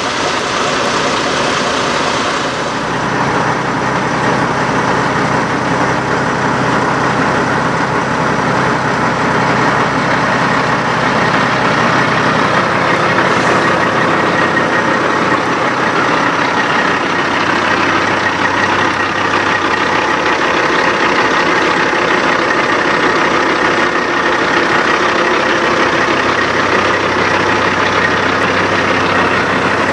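Peterbilt semi truck's diesel engine idling steadily.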